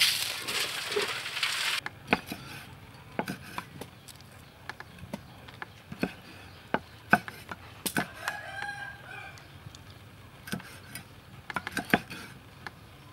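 For about the first two seconds, ice and small fish rattle and slosh as they are tipped out. Then a cleaver chops small fish on a wooden cutting board in irregular sharp knocks. A short pitched call, like a rooster's crow, comes about eight seconds in.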